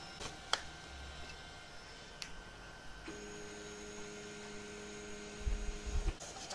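A couple of sharp clicks, then about three seconds in a steady motor whine of several tones as the MakerThink Knight 3D printer's servo motors drive an axis on its ball screws during bed levelling. A low rumble joins it just before it stops abruptly near the end.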